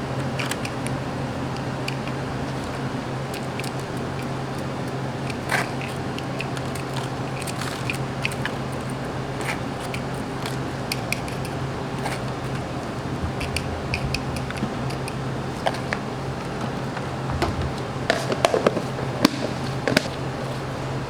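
Food-preparation work sounds in a shop kitchen: scattered light clicks, taps and scrapes of utensils and equipment, with a cluster of louder knocks near the end, over the steady hum of kitchen machinery.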